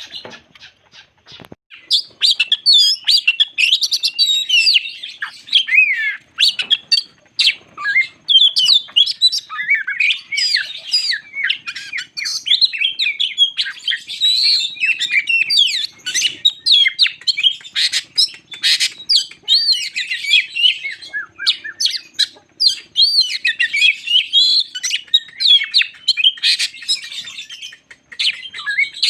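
Oriental magpie-robin (kacer) singing a long, unbroken run of rapidly varied whistles and chattering phrases, starting about two seconds in after a few faint clicks.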